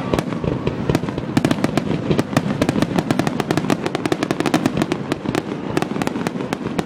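Fireworks in a dense, rapid barrage: many sharp bangs a second without a break, typical of a display's finale.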